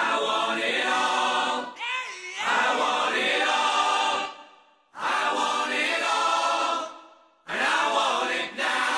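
Music: a choir singing long held chords in three phrases, each fading out before the next begins.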